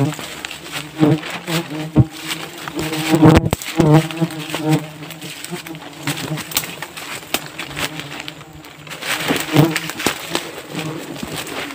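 Steady buzzing hum of flying insects, with dry leaves and twigs crackling and snapping underfoot as someone walks through undergrowth. The snapping is loudest a little past three seconds in.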